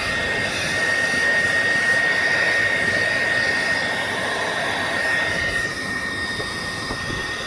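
Hot-air gun blowing steadily, a rush of air with a steady high whine, heating a phone's back cover to soften its adhesive. It gets a little quieter about six seconds in.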